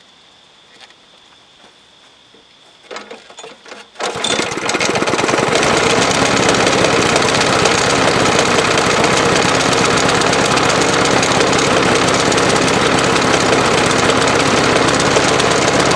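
Snapper push mower's small engine starting about four seconds in and running loud and rough, sounding choked all the time. The owner puts the rough running down to an engine worn out, with only about 40 psi of compression.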